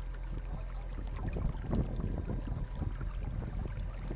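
Water sloshing and splashing against the bow of a radio-controlled model tugboat under way, irregular splashes over a steady low hum.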